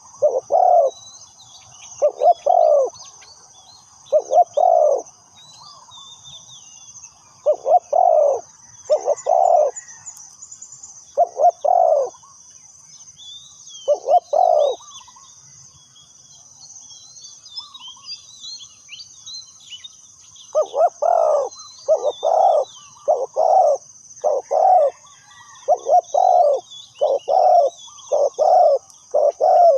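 Spotted dove cooing: repeated low coo phrases, spaced a second or two apart at first, then coming in a quick run of closely spaced coos over the last third. Small birds chirp faintly and a steady high-pitched drone runs behind.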